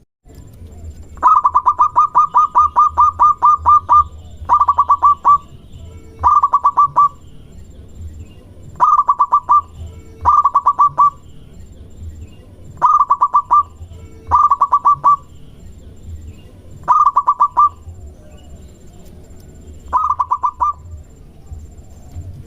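Zebra dove (perkutut) calling: nine bursts of rapid staccato notes, the first about three seconds long and the rest under a second each, spaced a second or two apart.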